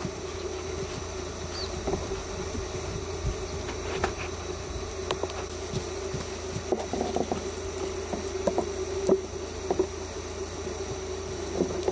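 Hoofbeats of a ridden young Japanese Sport Horse moving over arena sand, heard as scattered soft thuds and ticks over a steady buzz.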